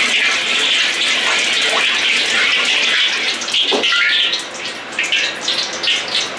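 Water hissing and sizzling in a hot wok over a gas flame as it is swirled with a ladle to rinse the wok. About four seconds in, the steady hiss gives way to short, uneven spurts of sizzle.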